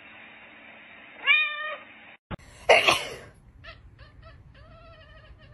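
Domestic cat meowing: a short meow a little over a second in, then a loud breathy burst, then a long, wavering meow near the end.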